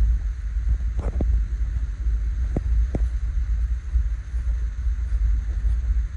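Wind buffeting a phone's microphone as a steady, uneven low rumble, with a few faint clicks of the phone being handled.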